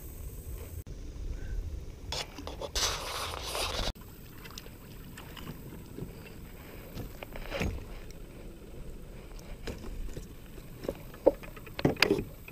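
Handling noise aboard a small fishing boat: rustling and knocks, with a short rush of noise about three seconds in that stops abruptly. Loud knocks near the end as a hand brushes against the camera.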